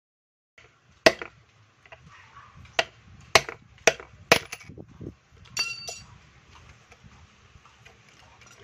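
Sharp metal-on-metal strikes, about six in irregular succession, then two lighter clinks that ring. A steel tool is tapping the new steering-head bearing down onto the motorcycle's steering stem.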